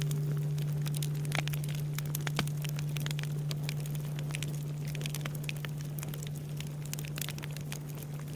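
Wood fire crackling and popping over the low hum of a large Japanese temple bell (bonshō) dying away slowly after a strike. A higher overtone of the bell fades out about a second in.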